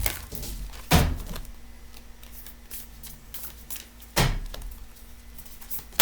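A deck of oracle cards being shuffled and handled, with two sharp knocks, about a second in and again about four seconds in, and light rustling and clicks between them.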